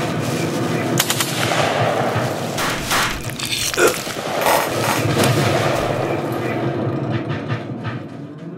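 Rapid automatic rifle fire: many shots in quick succession, thinning out near the end.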